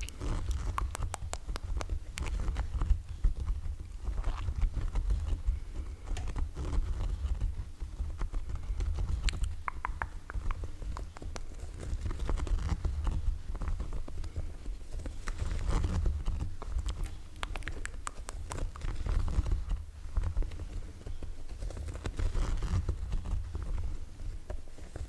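Irregular close-up taps and clicks over a steady low rumble.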